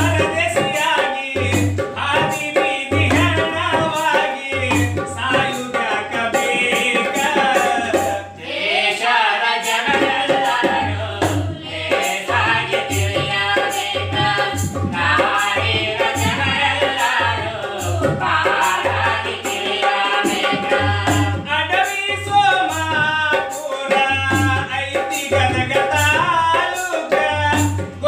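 Voices singing together to a hand drum beaten in a steady rhythm, with a short break in the drumming about eight seconds in.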